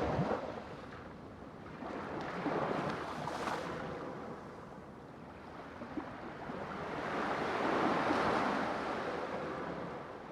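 Sea waves rushing and washing in slow surges, swelling up and fading away three times.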